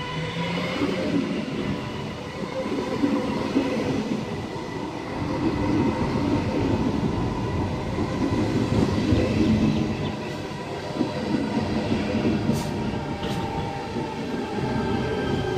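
Tangara electric multiple-unit train running in along the platform: a heavy rumble of wheels on rail under a steady electric motor whine, which changes pitch near the end.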